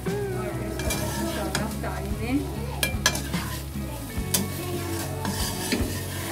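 Food sizzling in a pan while a utensil stirs and scrapes through it, with scattered sharp clicks as the utensil strikes the pan.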